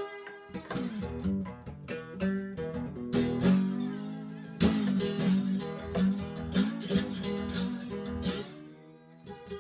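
Acoustic guitar converted with a dog bowl fitted in it as a resonator, strummed and picked with no effects, with several strong strums in the middle. It has a deep, slightly bassy tone from its worn-out strings.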